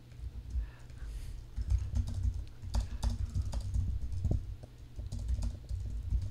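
Typing on a computer keyboard: a quick, uneven run of key clicks that starts about a second and a half in.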